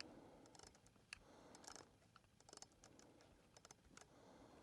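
Near silence with faint, irregular small clicks and light taps: handling noise from the compound bow and its gear, most likely as the sight is adjusted.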